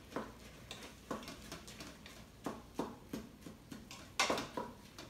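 A wooden spoon stirring browned ground beef in a stainless steel Instant Pot inner pot, giving a string of irregular scrapes and knocks against the pot, the loudest about four seconds in.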